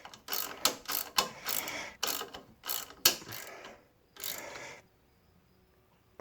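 Ratchet wrench clicking through quick repeated strokes as a bolt is tightened down, with a last short burst about four seconds in, then it stops.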